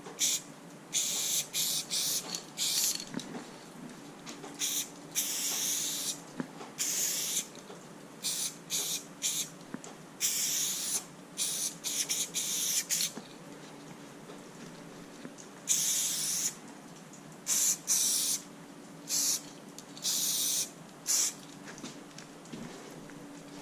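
Aerosol spray-paint can sprayed in a series of short bursts, with a few longer strokes of about a second, as graffiti outline lines are drawn. A faint steady hum runs underneath.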